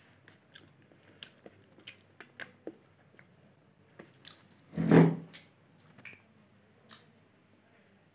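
Close-up chewing and small mouth clicks of someone eating chicken and rice by hand, with one louder thump about five seconds in.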